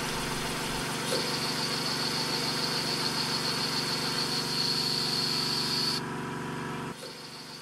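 Sieg SC4 lathe running while a parting tool cuts through threaded bar stock in the three-jaw chuck, parting off a nut. A steady high hiss from the cut runs from about a second in until it stops abruptly around six seconds, and about a second later the lathe's running sound drops as the spindle is stopped.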